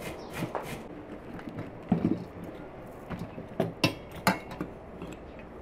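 A metal spoon and an enamel bowl give a few light clicks and knocks as a seasoning is spooned over grated carrot and cabbage. The loudest click is about two seconds in, and a quick cluster follows near the end.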